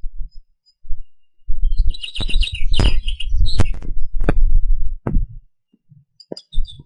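Wind buffeting the microphone in loud gusts, with crackles, and a small bird chirping a few quick notes in the middle and again near the end.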